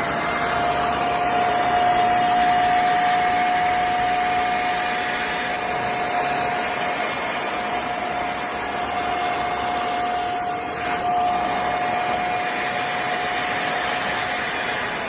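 CFBF handheld mattress vacuum cleaner running while vacuuming a fabric sofa: a steady motor whine over the rush of suction air.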